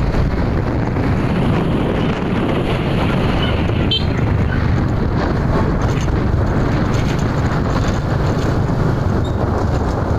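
Steady wind rush over the microphone of a camera on a moving vehicle, with the vehicle's engine and road noise running beneath.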